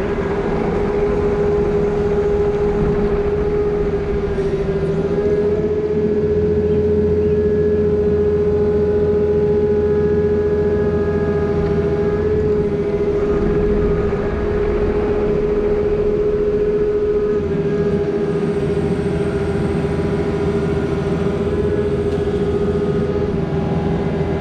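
Diesel engine of a compact construction machine running steadily at working speed, with a steady whine over the engine.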